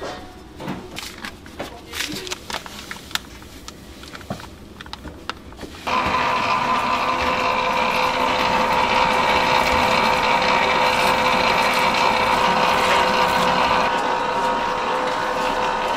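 Knocks and clinks of a hand working flour in a steel mixing bowl, then, about six seconds in, a Leader Baker LB-501A planetary dough mixer switches on and runs steadily, a loud even machine hum with a couple of held tones.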